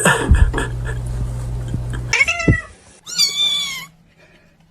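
A cat meows twice: a short falling meow about two seconds in, then a louder, longer meow a moment later. Before the meows there is a steady low hum with a few knocks, which cuts off abruptly.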